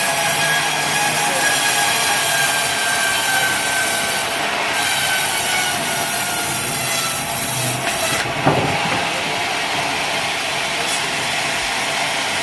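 Sawmill blade running and cutting through a log of wadang timber, a loud steady whine with a sharp falling sweep and click about eight and a half seconds in.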